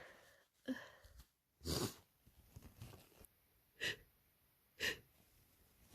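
A person with a head cold taking short, breathy intakes of breath between sneezes, four or so quick ones spaced about a second apart.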